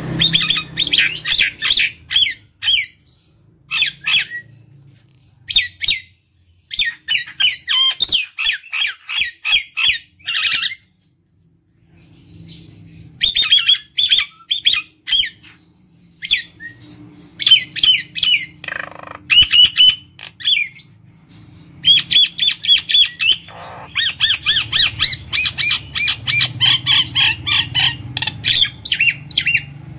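Common myna (jalak nias) singing in bouts of rapid, short, harsh chattering notes, many a second, with short pauses between bouts.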